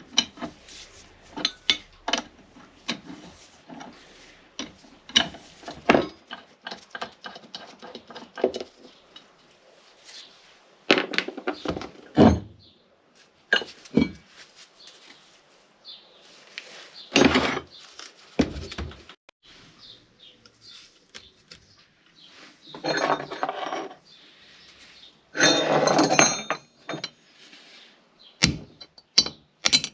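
Metal vice parts being handled on a workbench: repeated clinks, knocks and clanks of metal on metal. There are a few heavier knocks and two longer scraping stretches, each about a second and a half, late on.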